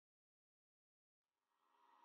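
Near silence; a very faint sound with a few steady tones fades in a little after a second in.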